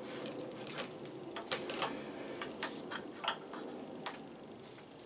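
Scattered clicks and light knocks of a handheld electric drill being turned round and handled in the loosened collar clamp of a drill stand; the drill is not running.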